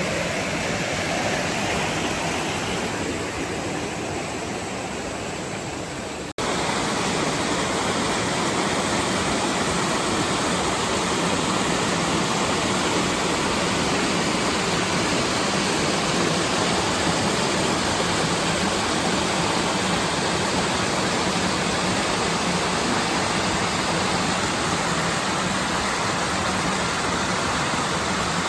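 Mountain stream water rushing steadily over rocks. About six seconds in, the sound breaks off for a moment and comes back a little louder.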